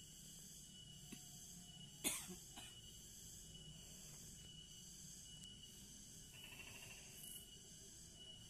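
Quiet outdoor ambience with a steady high insect buzz, broken about two seconds in by one sharp cough and a fainter second one about half a second later.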